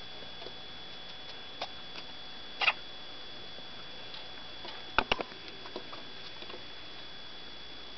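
A pet hamster sneezing: a few tiny, sharp sneezes a couple of seconds apart, the loudest about two and a half seconds in and a quick cluster about five seconds in, with small ticks between them. The owner is unsure whether sneezing this often is normal. A faint steady high-pitched whine runs underneath.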